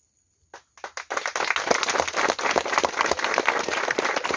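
A crowd applauding, hand claps coming in after a short silence about a second in and then running thick and steady.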